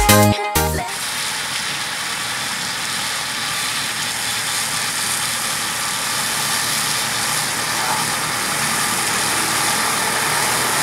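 Farmtrac tractor with a rotary disc mower working through grass: a steady engine and mower noise under a strong, even hiss. Dance music cuts out just under a second in.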